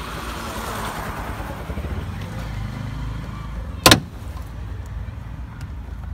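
A plastic door-panel retaining clip snapping loose once, sharply, just under four seconds in, as the trim panel is pried off the car door, over a steady low rumble.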